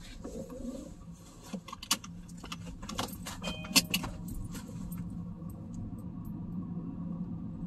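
Small metal pieces jingling and clicking in quick irregular bursts over the first four seconds. Under and after them, the steady low hum of a car creeping along at low speed, heard from inside the cabin.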